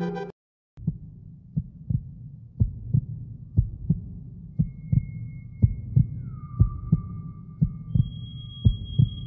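Heartbeat sound effect: a low double thump about once a second, starting just under a second in, right after the music cuts off. Thin, steady high tones come in one after another over the second half.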